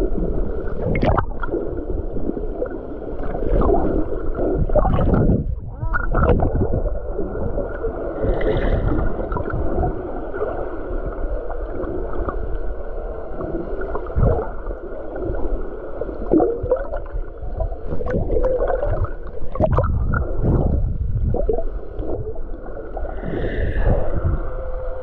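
Muffled gurgling and sloshing of water, with irregular surges.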